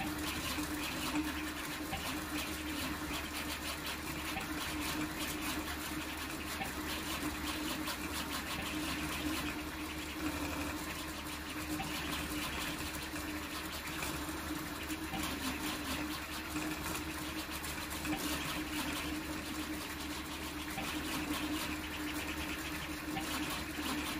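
Large toolchanger 3D printer printing at high speed: stepper motors whir and buzz in a fast, jittery flicker as the print head darts back and forth, over a steady hum.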